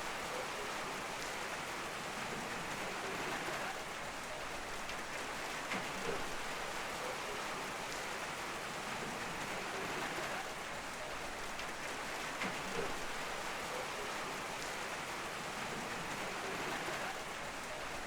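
Steady rain with a continuous hiss and scattered individual drop ticks.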